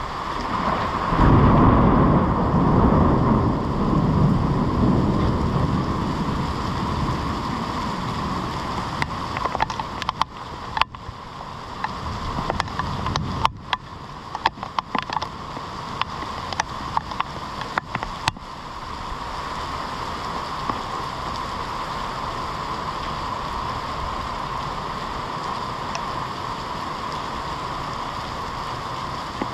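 Heavy rain falling steadily on pavement and trees, with a rumble of thunder that swells about a second in and dies away over several seconds. Scattered sharp ticks come midway.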